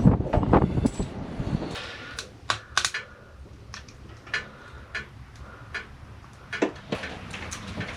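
Irregular sharp clicks and knocks, after a louder rumbling clatter in the first second or two.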